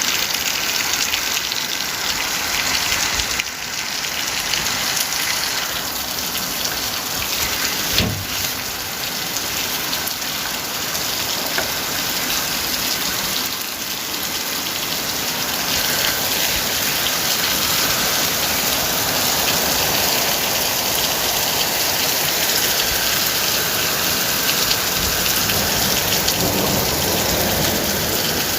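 Heavy rain falling steadily, a dense even hiss of drops, with one sharp crack about eight seconds in.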